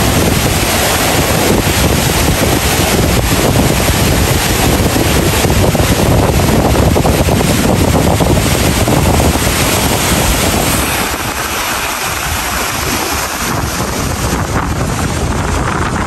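A steady, loud rush of river water pouring over a low cascade, with wind buffeting the microphone. The deep rumble eases a little about two-thirds of the way through.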